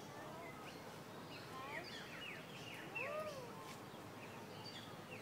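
Park ambience: scattered short bird chirps and calls over a steady background hush, with faint distant voices, and one louder arched call about three seconds in.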